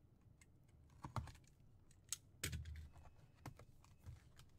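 Light, scattered taps and clicks of fingers handling and opening a cardboard trading-card hobby box, with a slightly stronger knock about halfway through.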